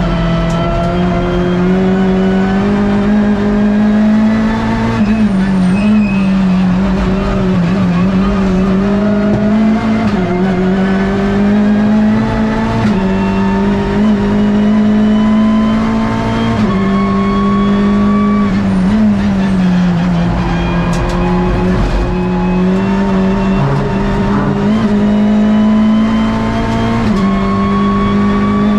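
Hyundai i30 N TCR touring car's turbocharged four-cylinder engine at racing speed, heard from inside the stripped cabin. Its pitch climbs and then drops abruptly at each gear change, every few seconds.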